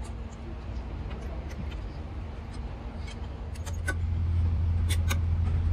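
A motor running steadily with a low hum that grows louder about two-thirds of the way in, with scattered light metallic clinks over it.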